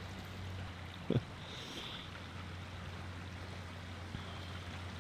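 Steady rush of a flowing stream, with one brief low thump about a second in.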